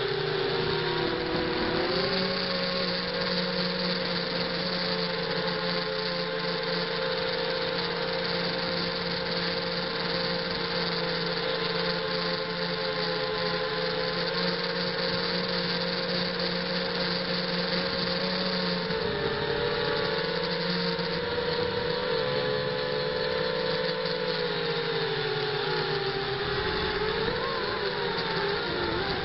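ZMR 250 racing quadcopter's brushless motors and propellers whining in flight, picked up by its own onboard camera. The pitch dips about a second in, holds steady for a long stretch, then wavers up and down with throttle changes in the last third.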